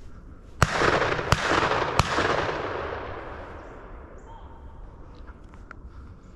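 Three shotgun shots, evenly spaced about two-thirds of a second apart, each followed by an echo that fades over a couple of seconds.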